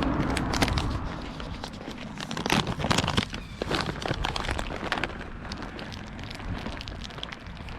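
Rustling and crinkling of a bag being handled, with many irregular small clicks and crackles over a low rumble.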